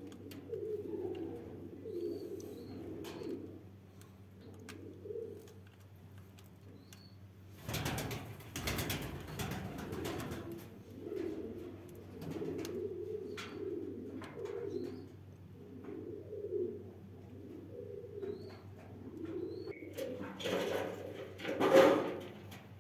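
Domestic pigeons cooing in a loft: low, repeated coo phrases. Noisier bursts come about eight seconds in and again near the end, the second one the loudest, over a steady low hum.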